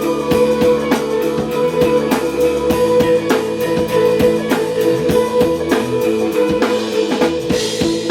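Live band playing the instrumental intro of a rock song: a drum kit keeps an even beat under sustained electric guitar chords.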